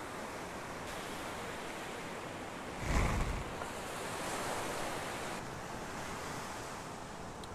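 Surf breaking and washing up a sandy beach, a steady rushing noise, with a brief low thump about three seconds in.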